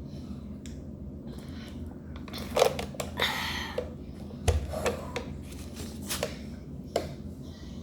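Jump rope slapping the floor and feet landing: a handful of sharp, irregular knocks and slaps, with a short rustling hiss between them.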